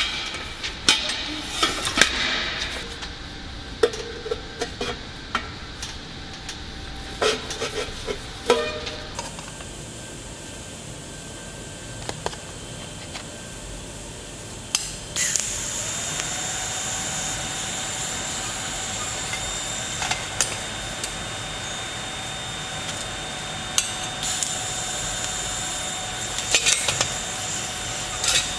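Metal knocks and clinks as a flange and pipe pieces are handled and fitted together. About halfway through, a TIG welding arc strikes on thin-wall stainless pipe, tacking the joint: a steady hiss with a steady tone, broken briefly twice.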